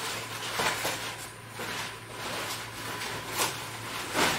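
Foam packing sheet rustling and crinkling as it is pulled and unwrapped by hand, in irregular strokes, the loudest near the end.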